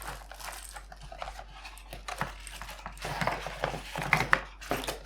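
Packaging being handled and taken off a keyboard: irregular rustling with scattered clicks and knocks, busier and louder from about three seconds in.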